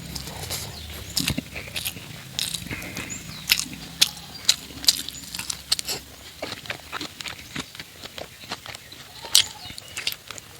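Close-miked eating of fatty pork curry with rice: chewing with irregular wet mouth clicks and lip smacks.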